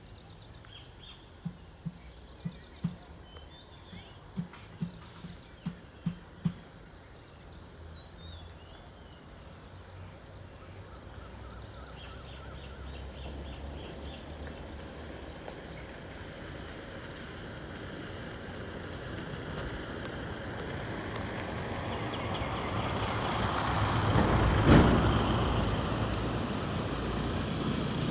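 Rural outdoor ambience with a steady high insect drone. A few soft low thuds sound in the first seven seconds. A vehicle then approaches, passes loudest about 25 seconds in, and fades.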